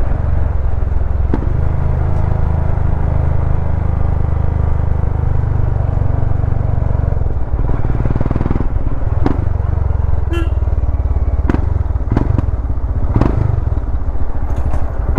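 Royal Enfield Himalayan's single-cylinder engine running through an aftermarket Powerrace slip-on exhaust at a low, steady riding pace, a deep, even exhaust note. From about halfway through, a handful of sharp knocks and rattles come in over it.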